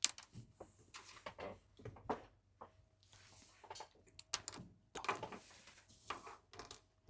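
Small hard plastic action-figure parts being handled: scattered clicks, taps and light scrapes. There is a sharper knock near the start and another about two seconds in.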